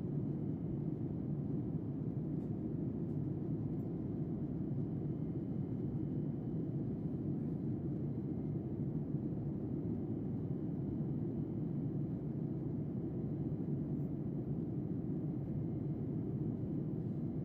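Steady low rumble of a jet airliner's cabin noise in cruise flight: engine and airflow noise heard from inside the cabin.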